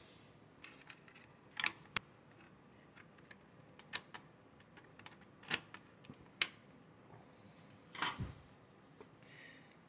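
Sparse sharp clicks and light taps of small tools and chainsaw parts being handled during a repair, a handful spread over several seconds.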